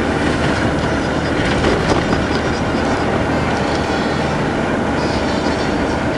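Car driving along a road, heard from inside the cabin: steady engine and road noise with a continuous rattle and clatter.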